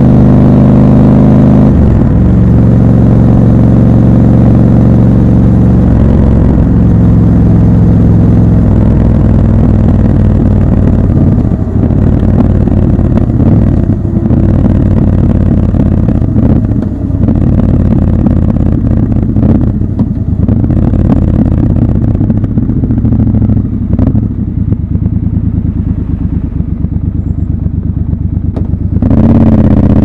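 Triumph Scrambler motorcycle engine running under way. Its pitch drops in steps over the first several seconds as it is shifted up, then it runs at lower, uneven throttle with brief dips, and revs up again near the end.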